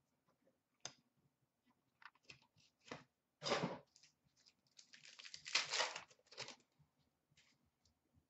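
Faint handling of trading cards and a crinkling pack wrapper: light clicks and taps of cards, a brief rustle about three and a half seconds in, then a longer crinkling, tearing rustle from about five to six and a half seconds in.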